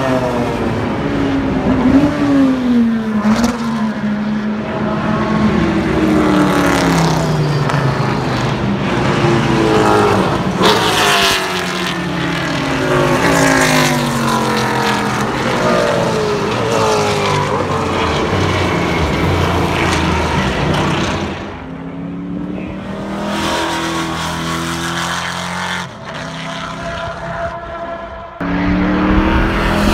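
Race cars, a Porsche GT car and a V8 Trans Am Mustang among them, passing one after another at speed. Each engine's pitch falls as it goes by, with gear changes in between. About two-thirds of the way through it drops to quieter, steadier engine sound, then turns loud again near the end.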